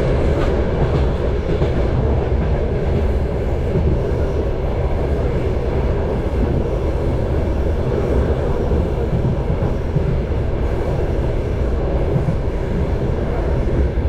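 A passenger train car rolling along the track, heard from inside the car: a steady rumble of wheels on rails.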